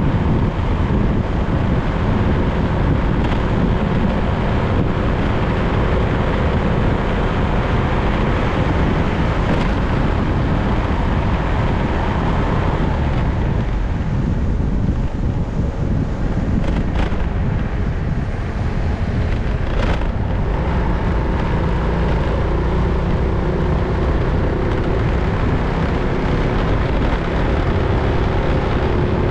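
Wind rushing over the microphone of a moving motorbike-mounted camera, with the bike's engine and tyre noise running steadily underneath. The rush eases for a few seconds around the middle.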